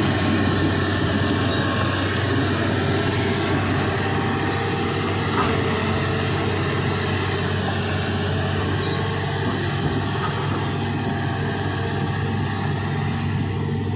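Hitachi hydraulic excavator's diesel engine running steadily under work, a constant low drone.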